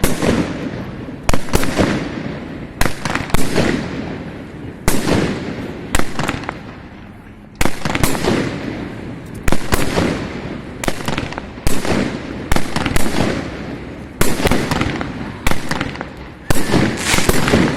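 Fireworks display: shells bursting in a string of loud, sharp bangs about every second or so, each followed by a fading echo.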